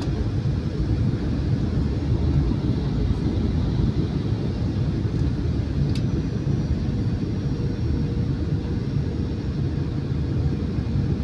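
Cabin noise inside a Boeing 737-800 airliner in flight: a steady low rumble of its CFM56 engines and rushing air, with a faint steady hum underneath. One small click sounds about six seconds in.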